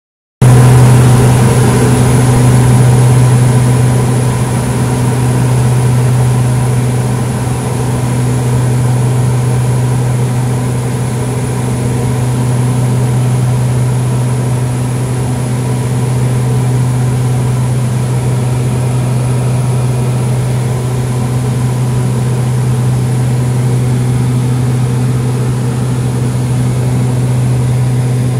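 Steady drone of a propeller airplane's engine and propeller heard from inside the cabin: a deep hum with a thin high whine above it, a little louder in the first few seconds.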